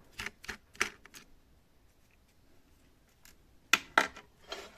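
Small screwdriver and screws clicking and tapping against the metal and plastic of a laptop's hard-drive bay: a few light ticks in the first second, then two sharp clicks near the end followed by a brief scrape.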